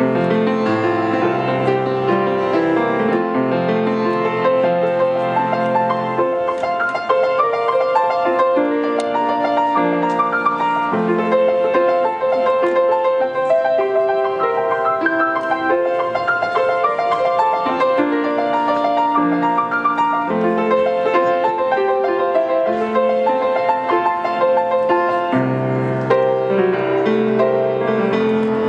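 Solo grand piano playing a hymn arrangement, a melody over flowing chords. The low bass notes drop away about six seconds in and come back strongly near the end.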